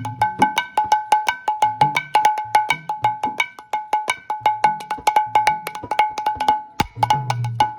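Mridanga drum played in a fast, continuous rhythm: sharp ringing strokes on the small treble head, mixed with deep bass strokes on the large head.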